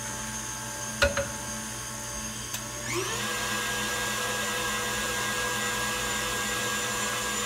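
KitchenAid stand mixer beating a creamed butter-and-sugar batter with vanilla just added, its motor giving a steady whine. A single sharp knock comes about a second in, and about three seconds in the mixer is turned up to a higher speed, the whine rising in pitch and getting a little louder.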